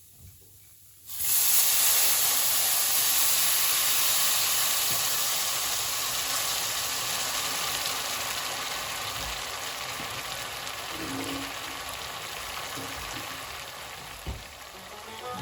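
Food going into a hot pan and sizzling, starting suddenly about a second in and slowly dying down; a light knock near the end.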